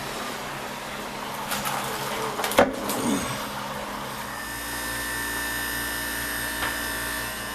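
Two knocks, then about halfway through a steady machine hum with several fixed tones sets in: a Hoshizaki ice machine running in its freeze cycle, with the cubes near harvest.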